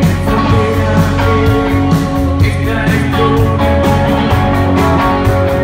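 Rock band playing loud, with guitars over a steady drum beat and cymbals struck about four times a second.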